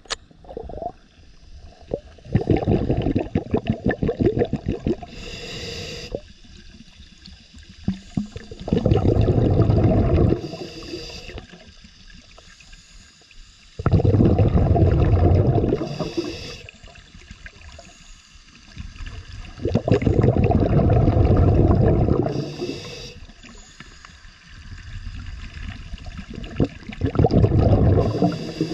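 Scuba divers breathing through regulators underwater: exhaled bubbles rumble and gurgle in bursts about two seconds long, roughly every six seconds, each with a short hiss near its end.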